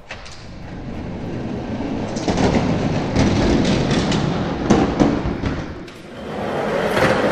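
Die-cast Hot Wheels monster trucks rolling and rattling down a plastic track: a continuous clattering with sharp clicks as the wheels knock over the track joints. It builds over the first couple of seconds, dips about six seconds in, then rises again.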